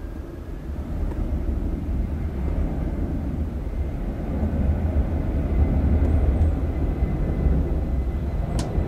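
Boeing 767-300 jet engines at takeoff power: a deep rumbling roar that swells from about a second in and stays loud through the second half as the airliner passes. A faint steady high tone runs underneath, and there is one sharp click near the end.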